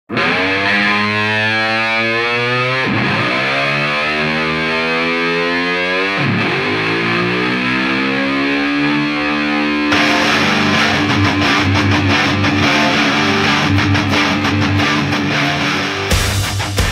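Intro music led by distorted electric guitar in a heavy-rock style. Long held notes twice swoop down and back up in pitch, then a drum beat comes in about ten seconds in under a steady held note.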